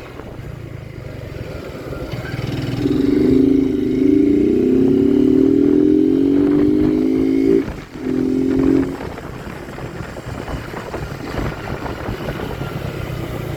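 Motorcycle engine accelerating, its pitch climbing steadily for about five seconds. It breaks off briefly just before the eight-second mark as if for a gear change, pulls again for about a second, then eases off. A steady low rumble of road and wind runs underneath.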